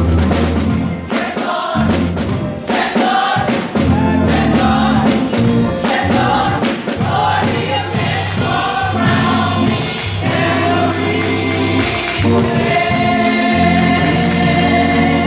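Gospel choir singing with a band, tambourine shaking in time over a strong bass line.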